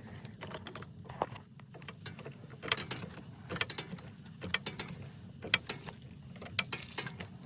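Irregular metallic clicks and clacks from a floor jack being worked under the car, over a steady low hum.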